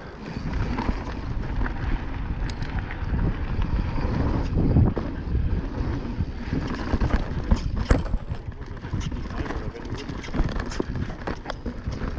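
Mountain bike descending a rough forest trail: wind buffeting the microphone over tyre noise on dirt and roots, with many sharp knocks and rattles from the bike over bumps, more of them in the second half.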